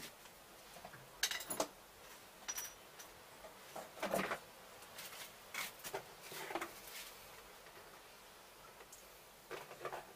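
Scattered clinks and clatters of small hard objects being handled, at irregular times, with the sharpest knocks about a second and a half and four seconds in.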